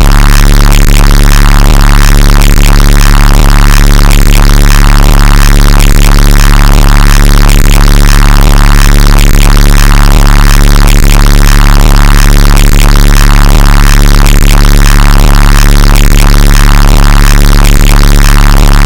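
Very loud, distorted electronic music with steady droning bass tones and a regular pulse. It cuts off abruptly at the end.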